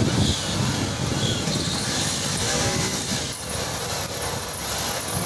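Wind blowing over the microphone, an uneven rumbling noise.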